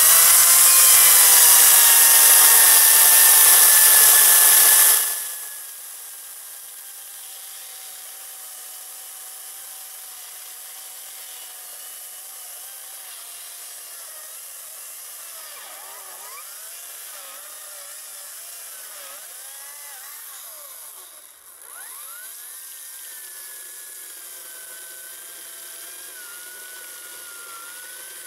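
Ryobi 40V brushless battery chainsaw running and cutting into a spruce trunk: a steady electric motor whine with no engine exhaust note, its pitch dipping and recovering as the chain bites the wood. The sound becomes much quieter about five seconds in.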